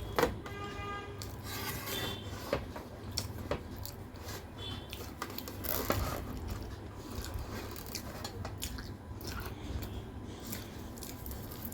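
Close-up eating sounds: chewing and biting food, with scattered small clicks and rubs. A brief pitched tone, like a distant horn, sounds in the first second.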